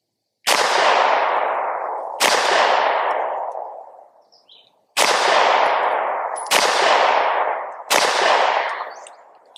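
Five 9mm pistol shots from a Palmetto State Armory Micro Dagger, fired at an uneven pace about one and a half to two and a half seconds apart. Each shot rings out and fades slowly over a second or two.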